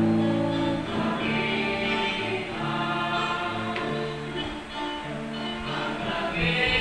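Music: a choir singing a slow religious song in sustained, held notes.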